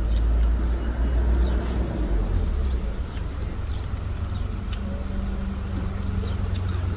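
Low, steady rumble of road traffic and a nearby vehicle engine, with a steady hum coming in for a couple of seconds past the middle and a few faint clicks.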